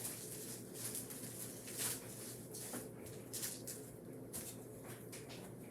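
Faint handling noises: scattered soft rustles and light taps from small craft materials being moved about.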